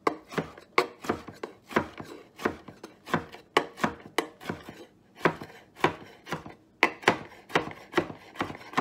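Chef's knife rough-chopping tomatoes on a wooden cutting board: steady knocks of the blade on the board, about three a second.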